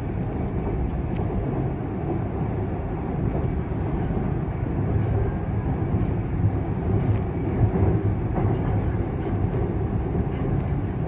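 Steady low rumble of a vehicle in motion, with faint scattered ticks and rattles over it.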